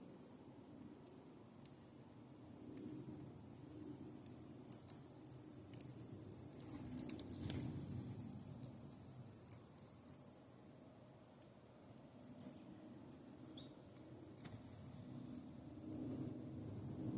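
Small songbirds giving short, high call notes, about ten chips scattered through, with a few sharp clicks between them over a steady low background rumble.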